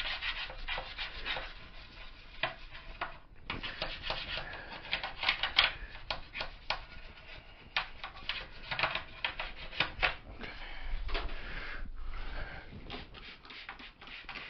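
Irregular scrubbing and rubbing strokes on the scooter's bodywork during cleaning, pausing briefly about three seconds in.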